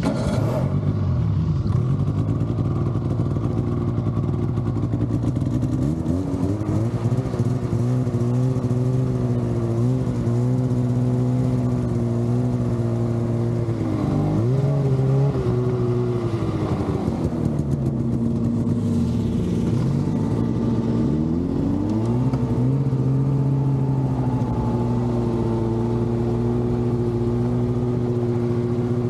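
Polaris snowmobile engine running at low speed, its pitch rising and falling with the throttle: it dips twice around the middle, then settles steady near the end.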